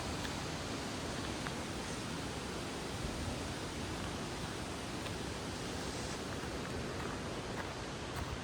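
Steady, even rushing noise with a few faint ticks scattered through it.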